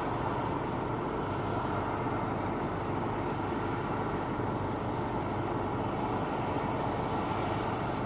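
John Deere S680i combine harvester running steadily under load while harvesting barley, its engine and threshing machinery making a continuous, even mechanical sound.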